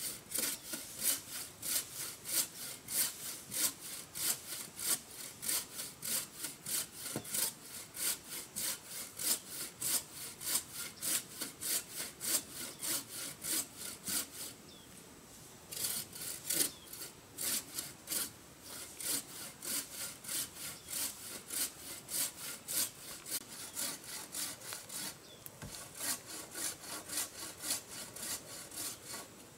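Hand saw cutting into a wooden pole: quick, even back-and-forth rasping strokes, about two to three a second, with a brief pause about halfway through and another near the end.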